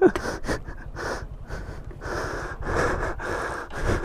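A person breathing hard and fast close to the microphone, rough heavy breaths that grow stronger and come more than once a second in the second half: a rider winded just after falling off his motorcycle.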